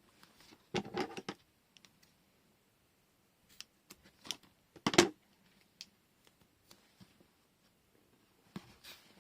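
Double-sided tape and paper being handled: a few short crinkles and clicks, the loudest about five seconds in.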